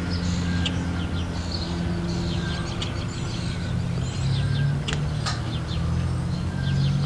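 Small birds chirping repeatedly, short high calls over a steady low mechanical hum, with a couple of sharp clicks about five seconds in.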